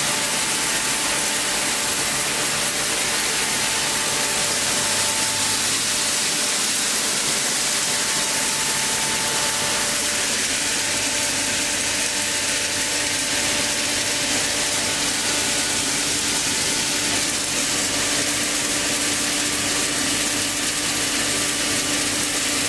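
Heavy-duty plastic crusher (granulator) running with a steady, dense mechanical rattle and a high hiss.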